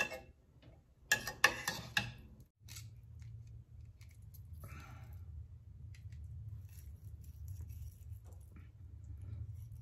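Metal kitchen tongs clicking and knocking against a stainless steel pan as slabs of pork spareribs are turned in simmering sauce, with a quick run of clicks between one and two seconds in. After that a low steady rumble goes on under a few faint ticks.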